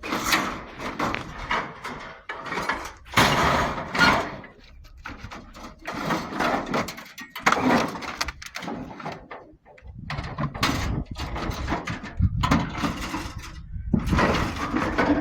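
Scrap metal being handled and loaded onto a truck: irregular clanks, knocks and scrapes of metal pieces.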